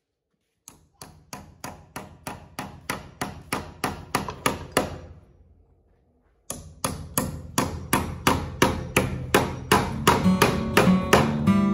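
Steel claw hammer driving nails to fix an electrical box onto a wooden stud: quick, evenly spaced blows about four a second, in two runs with a short break about six seconds in. Acoustic guitar music starts to come in near the end.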